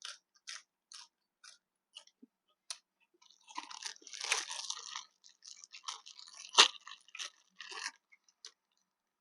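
A person chewing and crunching food close to the microphone: short crisp crunches every half second or so, a denser spell of chewing about four seconds in, and one sharp, loudest crunch about two-thirds of the way through.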